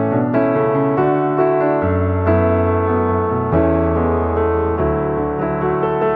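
Background piano music: a slow, gentle melody over sustained bass notes.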